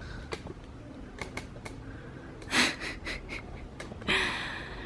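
Short breathy puffs and sniffs: a sharp one about two and a half seconds in, a few smaller ones after it, and a longer exhale with a faint voiced note near the end, with a few light clicks in between.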